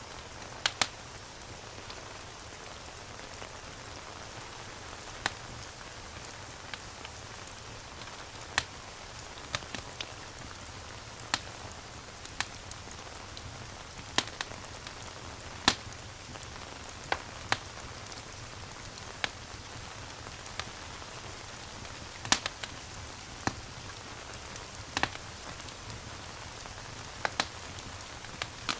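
Steady hiss of falling rain, with a wood fire crackling in sharp, irregular pops every second or two.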